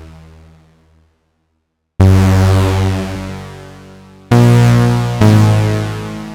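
Vectra software synthesizer playing a unison-stacked patch. A note fades out, and after a second of silence three bright notes or chords strike at about two, four and five seconds in, each decaying slowly.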